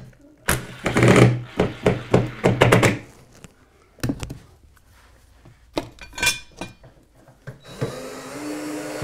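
Cordless drill-driver running in a burst of about two and a half seconds, driving a screw at a wall shelf bracket, with a steady motor hum and sharp clicks. A single knock follows about four seconds in, then light metallic clinks, and a steadier whir with a slowly rising pitch near the end.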